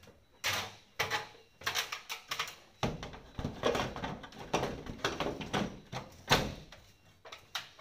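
Knocks, scrapes and clatter of a split air-conditioner indoor unit being hooked onto its steel wall mounting plate and pressed into place. The knocks are irregular, the loudest about six seconds in.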